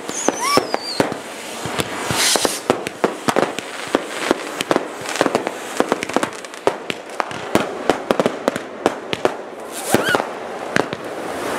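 Fireworks going off on all sides: many sharp, irregular firecracker bangs over the steady hiss of a ground fountain spraying sparks, with a falling whistle near the start.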